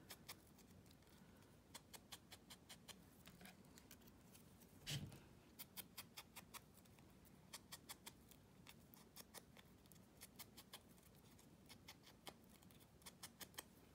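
Faint, quick taps in short runs of several a second, with one louder knock about five seconds in: paper being dabbed with ink to distress its edges.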